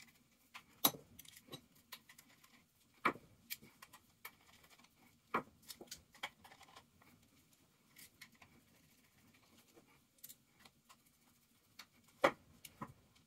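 Scattered small metallic clicks and taps of a screwdriver working the screws of an airsoft gearbox shell and of the metal shell being handled, the sharpest about a second in, at three and five seconds, and near the end.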